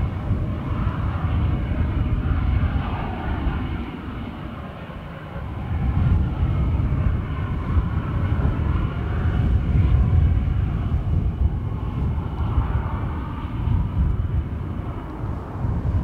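Jet engine of a U-2 (a General Electric F118 turbofan) running as the aircraft rolls along the runway after landing, mixed with gusty wind buffeting the microphone as a heavy, uneven low rumble. The sound eases briefly about four seconds in, then picks up again.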